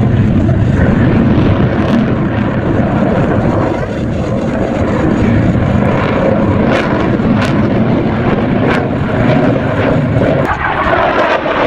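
Airplane engine noise, a steady loud rumble with a few faint clicks. About ten and a half seconds in, the sound thins in the low end and turns hissier.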